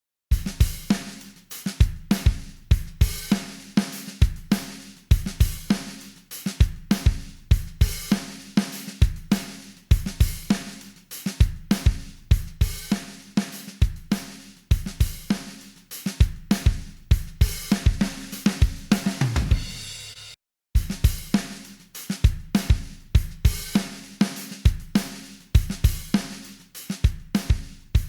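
Drum kit groove in a steady rhythm: kick, snare, hi-hat and cymbal hits. Near the middle, a low falling tone leads into a brief dropout before the beat resumes.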